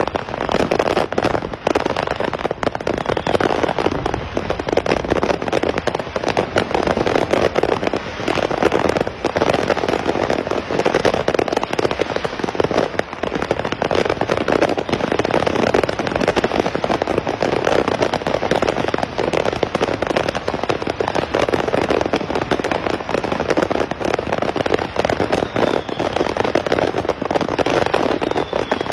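A truckload of fireworks set off by a crash, going off all at once: a continuous barrage of bangs and crackling with no break.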